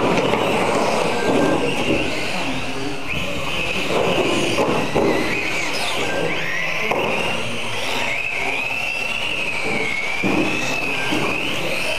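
Electric radio-controlled mini racing cars running on a carpet track: a high motor whine that rises and falls in pitch as the cars speed up and slow down through the corners.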